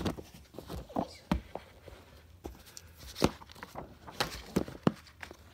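Handling of a board game rulebook and box contents: scattered sharp taps and knocks of paper and cardboard being picked up, set down and shifted, with a louder knock at the very start.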